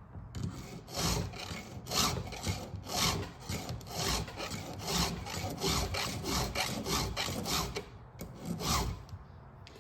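Round chainsaw file in a file guide rasping across the cutters of a saw chain, a steady run of forward-only strokes about twice a second, pausing briefly near the end.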